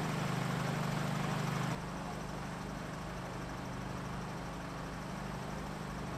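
A steady engine hum at idle. About two seconds in it abruptly drops in level and stays steady and lower from then on.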